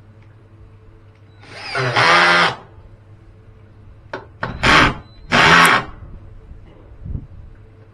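Power drill run in three short bursts: one of about a second, then two shorter ones close together. The motor whine rises as it spins up at the first.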